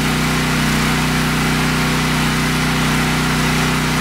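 Briggs & Stratton Elite Series 8000-watt portable generator engine running steadily on propane through a tri-fuel conversion kit, just started and with no load on it. It runs smoothly.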